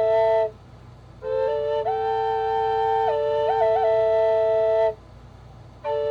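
Flute playing a slow melody over a steady held drone note, with pauses for breath about half a second in and near the end.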